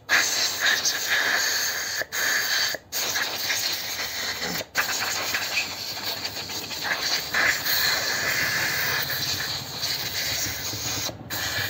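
Compressed air hissing from an air gun as it blows dirt and water out of a motorcycle's rear disc-brake caliper. The hiss is steady, with a few brief stops where the trigger is let go.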